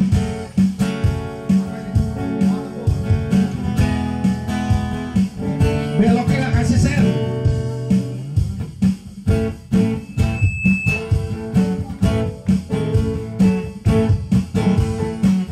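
Live music: an acoustic guitar strummed in a steady rhythm.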